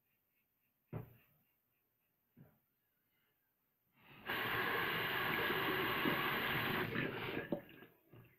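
Bathroom sink tap running for about three seconds as a safety razor is rinsed mid-shave, with a sharp knock about a second in and a few clicks as the water stops.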